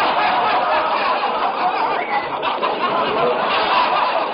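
Studio audience laughing, a dense, steady wash of many voices laughing together.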